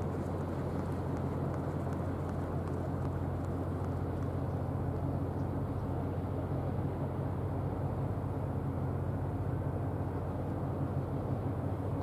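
Steady low drone of a K130 Braunschweig-class corvette's machinery as the ship passes, an even hum with a rushing noise over it.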